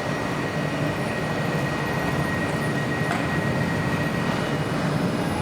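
Train running through the station: a steady rumble, with a thin high tone held over it that fades out about four seconds in.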